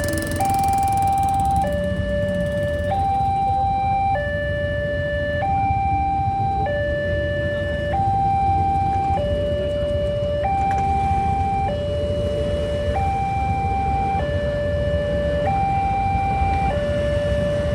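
Railway level-crossing warning alarm sounding its two-tone hi-lo siren, switching between a higher and a lower note about every second and a quarter, over a low rumble. The alarm warns that a train is coming and the crossing barriers are closing.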